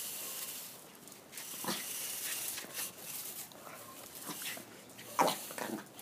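A dog barking at a broom: a few short, separate barks, the loudest pair near the end.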